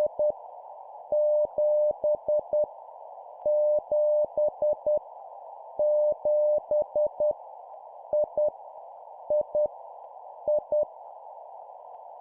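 Morse code sent at 10 words per minute as a single steady tone keyed into dots and dashes over a band of static-like hiss, each character sent several times in a row for copying practice. The keying stops about 11 seconds in, leaving only the hiss.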